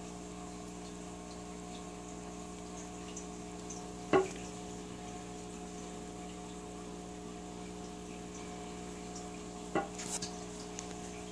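A steady mechanical hum with a few fixed tones. There is one sharp knock about four seconds in, and a lighter knock and click near the end.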